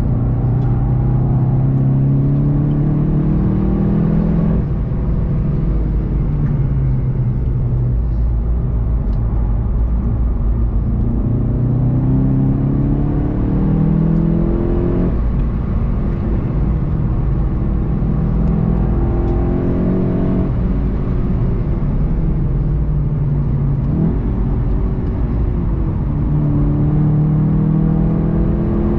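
VW Golf 7 GTI TCR's turbocharged 2.0-litre four-cylinder heard from inside the cabin, driven hard on track. The engine note climbs steadily under acceleration several times, each climb ending in a sudden drop in pitch, over a constant rumble of tyre and road noise.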